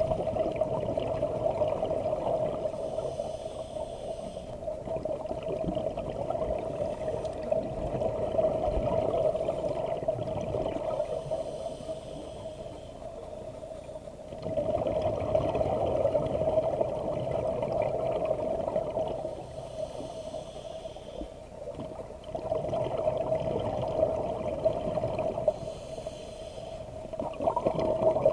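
Scuba diver breathing through a regulator, heard underwater: a short hiss on each inhale, then a long burble of exhaled bubbles, in a slow cycle about every eight seconds.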